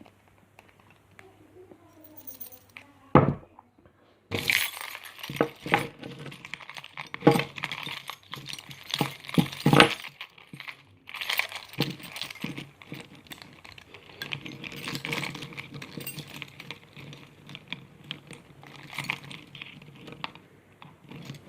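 A metal key and small tools being handled: irregular clinks, knocks and rattles, with one sharp knock about three seconds in.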